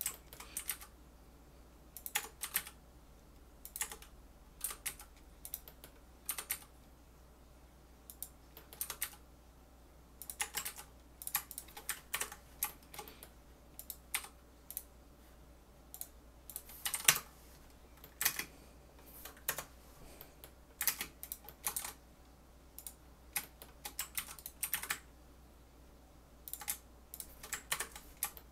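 Computer keyboard keys tapped in short, irregular clusters of clicks, with a steady low fan hum underneath.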